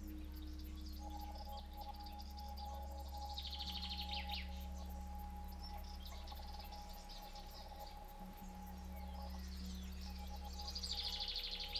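A steady ambient drone with bird chirping layered over it: two clusters of quick high trills, about three and a half seconds in and again near the end.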